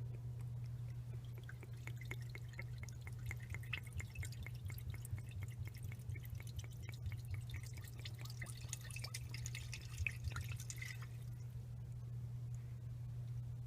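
AMSOIL engine flush being poured into the engine's oil filler, an irregular trickle and drip of liquid that stops shortly before the end. A steady low hum runs underneath.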